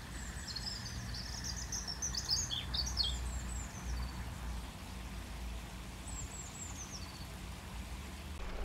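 Small garden songbirds singing: a burst of quick high chirps in the first few seconds, then a short falling run of notes about six seconds in, over a steady low rumble.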